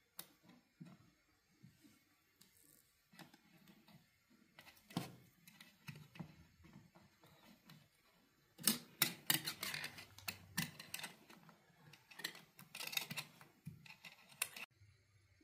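Close-up handling noises of fingers working a string through a large raw fish's tail on a metal tray: scattered soft ticks and scratches, then a denser run of sharp clicks and scrapes from a little past halfway, stopping abruptly shortly before the end.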